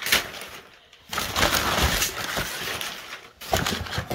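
Crumpled kraft packing paper rustling and crackling as hands dig through it in a cardboard box, with a brief lull about a second in.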